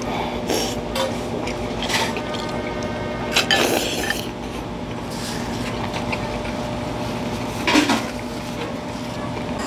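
Ramen noodles being slurped and chopsticks clicking against the bowl, in several short noisy bursts over a steady low background hum. Near the end there is a brief louder rustle as a paper napkin wipes the mouth.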